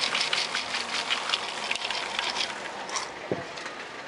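Damp chickpeas pouring from a steel bowl into a large iron kadai of hot salt, with a dense, steady crackle of many small clicks as they land and heat.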